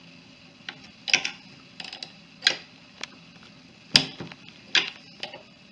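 Irregular sharp clicks and ticks as a compact trim router's base and bit assembly is turned and handled by hand, the loudest click about four seconds in.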